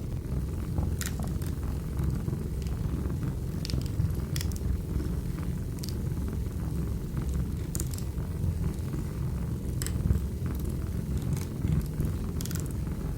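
Wood fire burning in a fireplace: a steady low rumble of the flames with irregular sharp crackles and pops from the burning logs, roughly one a second.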